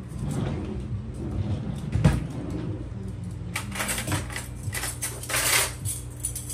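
Household handling noises: a sharp knock about two seconds in and two bouts of rustling and clatter near the end, over a steady low hum.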